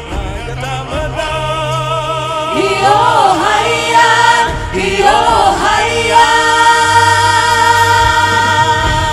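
A vocal group singing a song in harmony over a steady low bass part, with long held notes in the second half.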